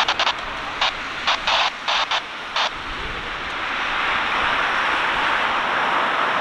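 Boeing 737-800's CFM56-7B jet engines at takeoff power, heard at a distance as a steady rushing roar that grows louder about four seconds in. Several short, sharp bursts of hiss come in the first three seconds.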